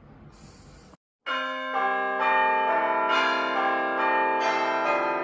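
Faint room noise with a short hiss, then a brief cut to dead silence about a second in, after which bell-like chime notes are struck one after another, about two a second, each ringing on under the next, as end-of-video music.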